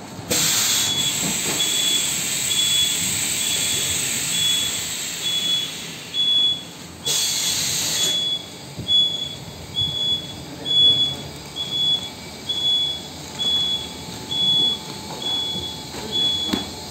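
Quilt packing machinery running in a workshop, with a steady hiss of air for about the first half. After that, machine noise swells and falls in a regular rhythm. A short, high electronic beep repeats a little more than once a second throughout.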